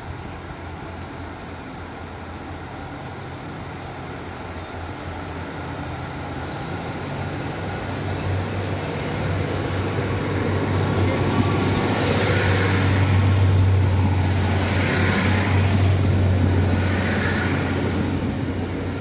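Class 150 diesel multiple unit approaching along the platform and passing, its underfloor Cummins diesel engines giving a steady low drone that grows louder as it nears. Wheel and rail noise joins in as it goes by, loudest about two-thirds of the way through, then fading.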